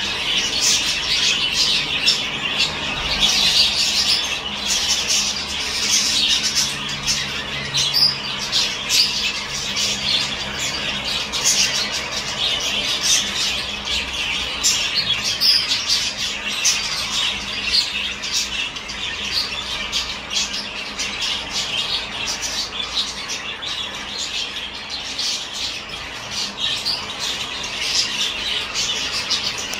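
Peach-faced lovebirds chattering: a continuous stream of rapid, shrill chirps and squawks with no pause.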